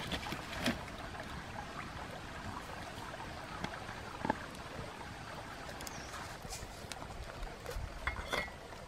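Steady running of a forest stream, with a few light clinks and knocks as the lid of a clay cooking pot is lifted off and handled, the sharpest about halfway through and a short ringing clink near the end.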